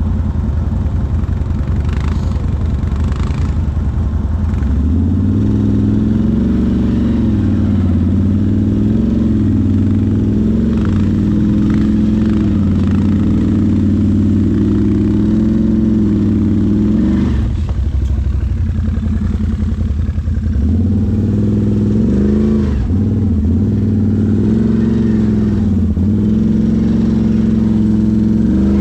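ATV engine running under constantly changing throttle, its pitch rising and falling again and again, with brief drops off the throttle about 17 and 21 seconds in.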